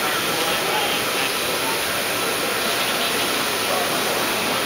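Table-top CNC milling machine cutting a block of machinable plastic: the spindle and cutter make a steady hiss.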